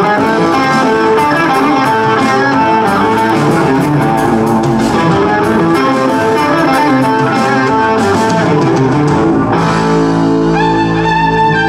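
Electric guitar playing fast runs over bass guitar in a live fusion band. About ten seconds in, an electric violin comes in with long held notes.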